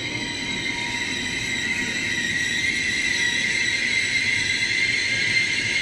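Chinese CRH high-speed electric train moving along a station platform: a steady rushing rumble with a thin high whine, slowly growing louder.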